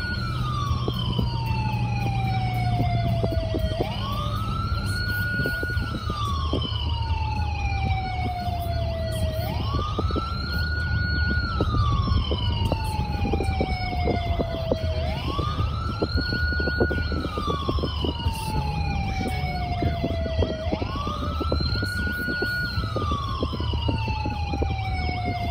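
Small electronic play siren sounding a wail tone, a quick rise, a short hold at the top, then a slow fall, repeating about every five and a half seconds. Steady low car road noise runs underneath.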